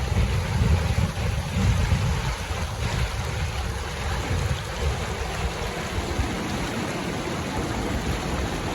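Whitewater river rapids rushing steadily, with wind buffeting the microphone, heavy for the first six seconds or so, then easing.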